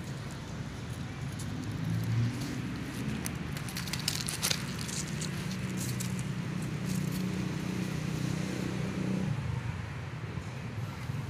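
A motor vehicle engine running steadily with a low hum, which stops about nine seconds in. A cluster of short clicks and rustles comes about four seconds in.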